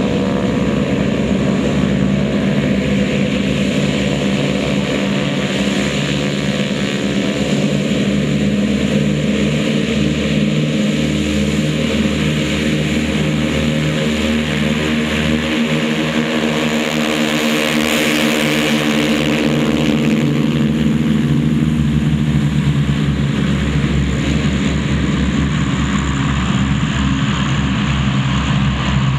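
Several North American T-6 Texans' Pratt & Whitney R-1340 nine-cylinder radial engines running together on the takeoff run, a loud steady drone. It swells louder and harsher about two-thirds of the way through as the formation lifts off.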